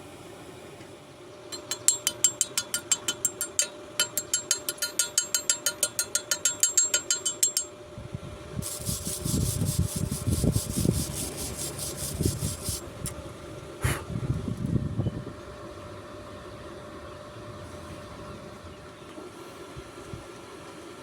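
Hand work on metal: a quick run of rhythmic scraping strokes, about five a second, then a few seconds of rough rasping, and one sharp metallic knock, over a steady hum.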